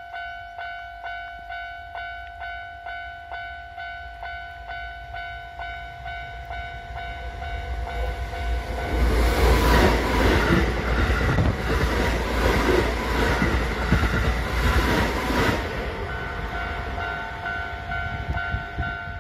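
Japanese electronic level-crossing bell ringing in a steady clang about twice a second. From about eight seconds in, a red-and-cream electric train passes close by at speed, with a loud rush and wheels clacking over the rail joints about once a second, and this drowns out the bell until about sixteen seconds in.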